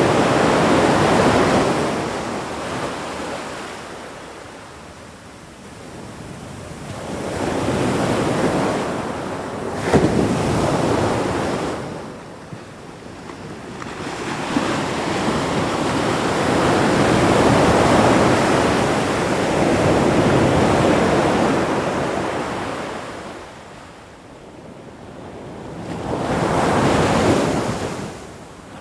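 Ocean waves washing in and drawing back in slow surges, each swelling and fading over several seconds, about four in all. One brief sharp crack comes about ten seconds in.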